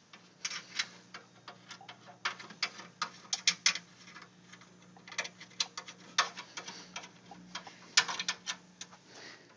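Light metallic clicks and taps as brass offset spacers are threaded by hand onto the steel bed studs of a Roland SRM-20 desktop milling machine. The clicks are irregular and come in small clusters.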